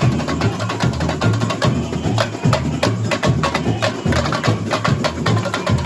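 Samba school bateria playing: big bass drums keep a steady low beat under a dense rattle of fast, sharp drum strokes.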